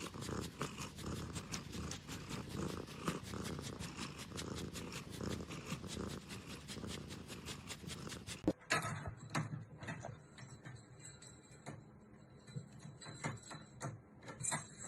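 Cat purring close up with a steady pulsing rhythm. It cuts off sharply about eight and a half seconds in, leaving a quieter stretch with scattered clicks and taps.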